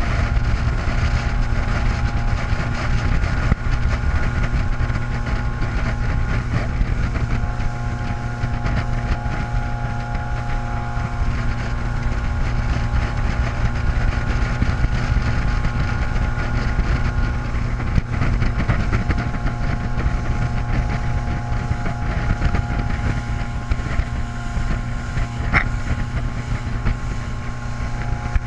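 Motorboat engine running steadily at speed while towing a water skier, with the rush of the wake and wind buffeting the microphone. A single sharp click about 25 seconds in.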